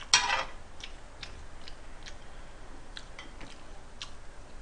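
Pork cooking on an electric griddle and being handled with metal tongs: a short loud scrape or clatter of the tongs on the grill just after the start, then scattered small ticks and pops.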